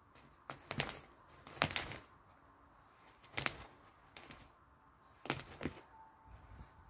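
Woven plastic rice sack scratching and rustling in short, irregular bursts, about six over a few seconds, as a cat claws and bites at it to get at a mouse inside.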